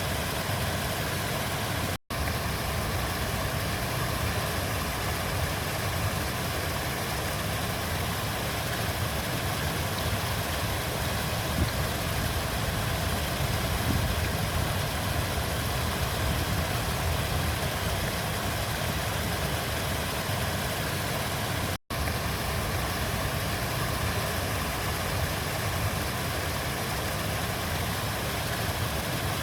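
Steady rushing of a flowing river, a constant even wash of water noise with a low rumble. The sound cuts out for an instant twice, about two seconds in and near the middle.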